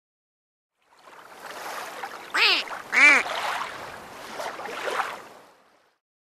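Water sound effect, a steady wash fading in and out, with two short duck quacks about two and a half and three seconds in.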